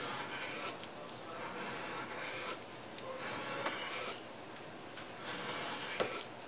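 Sandpaper rubbed by hand over the aluminium-alloy backstrap of a Beretta 92FS frame, smoothing off the file marks where the grip hump has been removed. It makes a scratchy hiss in spells of a second or two with short breaks, and a couple of light ticks.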